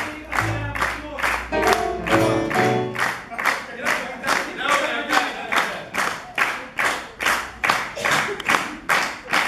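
Audience clapping in steady time, about two and a half claps a second, over the live band's music. The band stops a little over two seconds in and the rhythmic clapping carries on alone.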